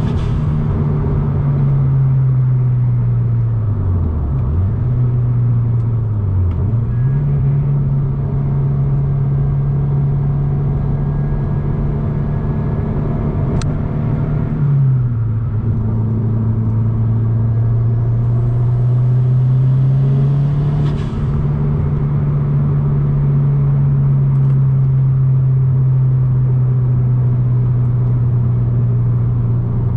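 2022 Subaru WRX's turbocharged 2.4-litre flat-four, fitted with a Garrett G30-900 turbo kit and cat-back exhaust, running steadily while cruising. The engine note dips briefly twice in the first several seconds, drops about halfway through and then climbs slowly.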